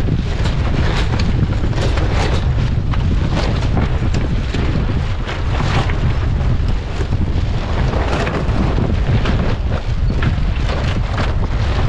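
Wind buffeting the microphone aboard a sailboat under way, a heavy continuous rumble with irregular gusty crackles, over the rush of water along the hull.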